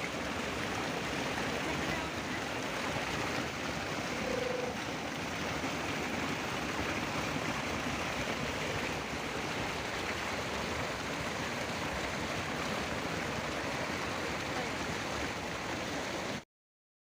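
Fast mountain water rushing in a steady, strong flow. It cuts off abruptly near the end.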